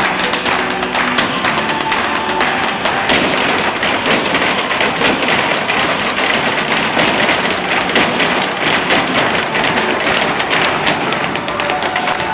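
Irish step dancers' shoes beating a fast, even rhythm of taps on the stage, with the dancers behind clapping in time and dance music underneath.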